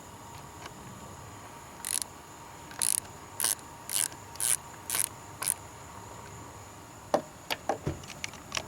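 Ratchet wrench loosening a car battery terminal clamp nut: about seven short ratcheting strokes at roughly two a second, then a few sharp clicks and knocks near the end.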